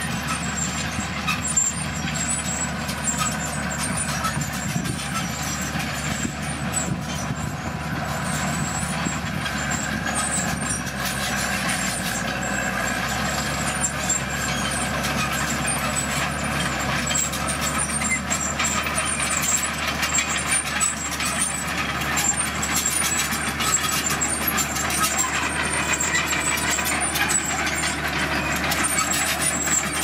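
Komatsu D41PX crawler bulldozer running steadily under load as it pushes red gravel and soil, its diesel engine with the rattle and clatter of its steel tracks.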